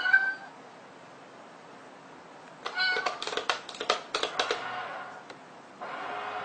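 Domestic cat meowing: a short meow right at the start and another brief one near three seconds in. Alongside the second meow comes a quick run of clicks and taps lasting about two seconds.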